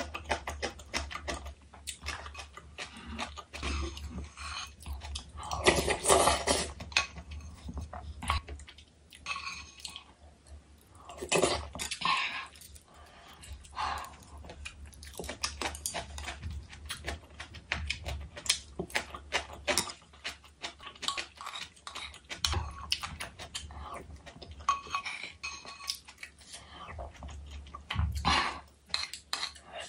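Close-up mukbang eating sounds: chewing and crunching napa cabbage kimchi, with short clicks of chopsticks and spoon on the stoneware bowl, and a few longer swells as broth is sipped from the lifted bowl.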